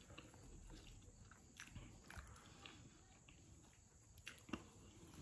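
Faint chewing of chewy garlic naan with curry, with a few soft clicks scattered through it.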